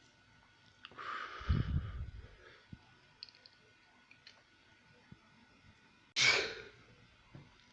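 A person's breathy rush of air through the nose or mouth about a second in, then a single sudden sneeze about six seconds in, the loudest sound, fading quickly.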